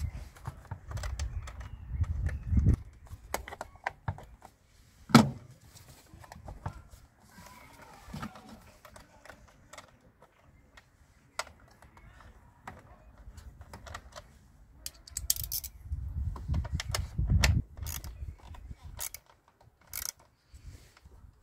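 Small clicks and knocks of hands and a tool on the plastic air filter box of a car engine bay as it is refitted and screwed down, with one sharp knock about five seconds in and two stretches of low rumble.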